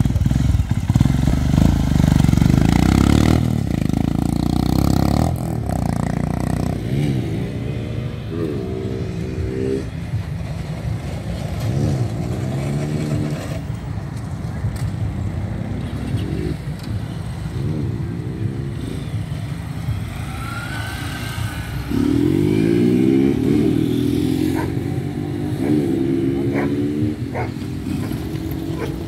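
Motorcycle engines revving and accelerating. For the first few seconds a Royal Enfield Himalayan 411 pulls away close by. After that, motorcycles on the track rev up and down over and over, their pitch rising and falling, with a louder rising rev about two-thirds of the way through.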